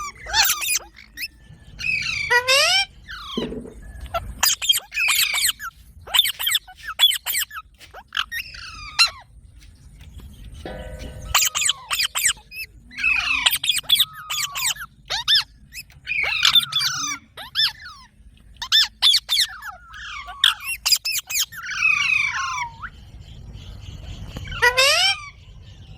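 Parrot calling over and over: short, shrill squawks and chattering calls with quick rising and falling pitch, several a second in clusters separated by brief pauses.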